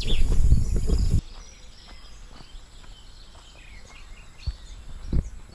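Outdoor hilltop ambience with birds chirping. For about the first second wind buffets the microphone with a loud low rumble, which cuts off abruptly. After that the background is quiet, with faint bird chirps and two soft thumps near the end.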